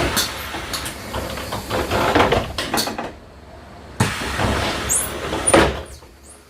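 Passenger doors of an older Mercedes-Benz Citaro city bus operating, a noisy stretch of door movement. The loudness dips about three seconds in, and a second door movement starts suddenly about four seconds in.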